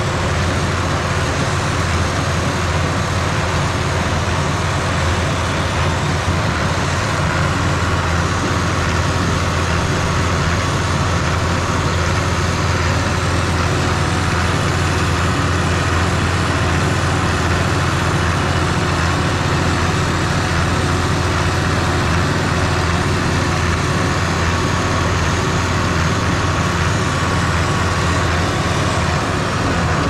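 Allis-Chalmers 200 tractor's diesel engine running steadily as it powers a New Idea square baler, a constant low drone under a wash of machine noise.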